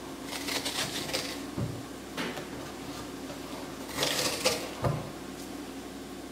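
A metal spoon scraping seeds and stringy pulp out of the inside of a halved pumpkin, in two spells of rough scraping, with a couple of soft knocks as the pumpkin shell shifts on the wooden board.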